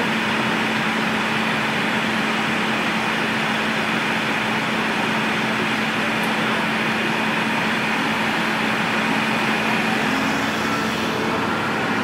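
Heavy diesel engines of a wheel loader and an oilfield service truck running steadily as the loader tows the truck through mud, with a constant hum under the engine noise.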